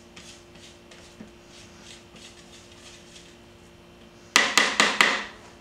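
A spatula scraping garlic paste down the sides of a food processor bowl in soft, faint strokes, then about four sharp knocks in quick succession near the end as the spatula is rapped against the bowl.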